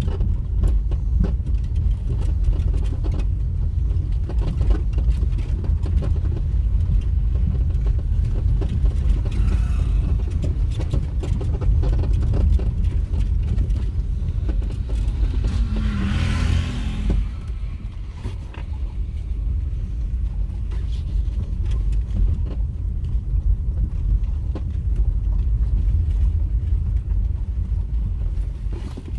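Vehicle travelling along a road: a steady low rumble with frequent small knocks and rattles. About 16 seconds in, a brief rush of hissing noise swells and fades.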